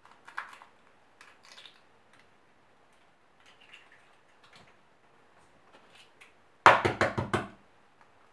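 Eggs tapped against the rim of a stainless steel mixing bowl and broken into the flour: a few soft taps early, then a loud run of five or six sharp knocks with a low ringing from the bowl, near the end.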